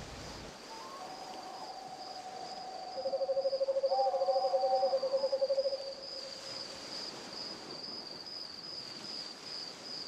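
Rainforest ambience: an insect trills steadily at a high pitch throughout. A lower animal call, first a held tone and then a fast pulsing trill from about three to six seconds in, is the loudest sound.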